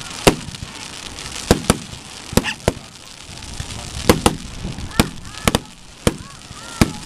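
Aerial fireworks shells bursting during a display: about a dozen sharp bangs at irregular intervals, some in quick pairs, each with a brief echo.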